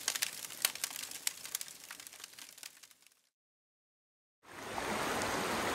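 Campfire crackling and popping, fading out over about three seconds. After a moment of silence, a river's steady rushing comes in about four and a half seconds in.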